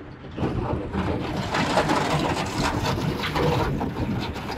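Road grader's diesel engine running as the machine moves in.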